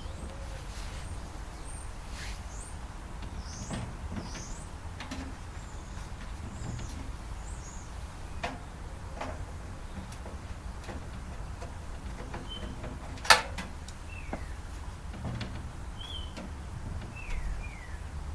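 Scattered clicks and knocks of tools and metal parts being handled while a microwave oven is taken apart, with one sharp click about thirteen seconds in. Short high chirps come and go over a steady low rumble.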